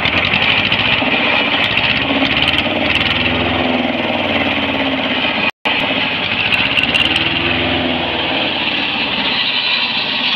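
Escorts 335 tractor's diesel engine running steadily, its pitch rising and falling twice as the engine speed goes up and back down. The sound cuts out for an instant about halfway.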